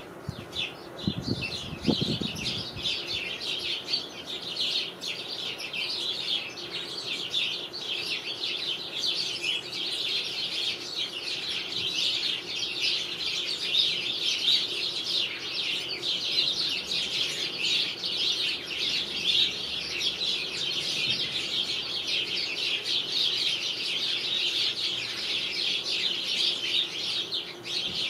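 A flock of house sparrows chirping nonstop, many short chirps overlapping into a dense chatter. There is a brief low rumble in the first couple of seconds.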